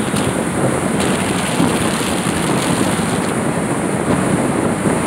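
Steady rush of road and wind noise from a moving vehicle, heard at an open window, with wind buffeting the microphone.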